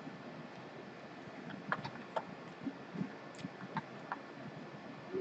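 Faint, irregular clicks and taps from computer input at a desk, about nine of them, over a low steady hiss.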